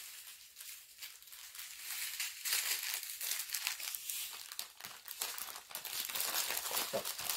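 Plastic bags crinkling as small bags of diamond-painting drills are stuffed back into a larger plastic bag, a continuous crackle that thickens after the first second or so.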